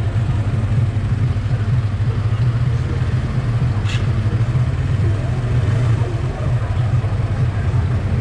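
Motorcycle engine idling steadily at a standstill, a low even hum, with one brief sharp click about four seconds in.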